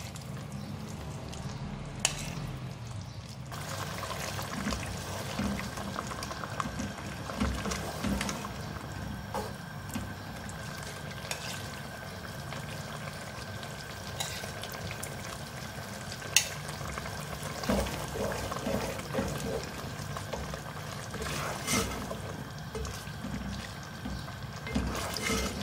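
Wooden spatula stirring beef pieces and yogurt-onion paste as they fry in an aluminium pot, making wet, sloshing stirring sounds. Now and then it knocks against the pot, and a steady hum runs underneath.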